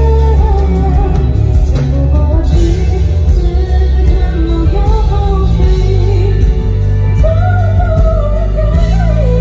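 Live pop song: a female singer holding long, wavering sung notes over a band with heavy, sustained bass.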